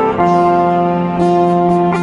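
Instrumental background music of long held notes, with the chord changing just after the start.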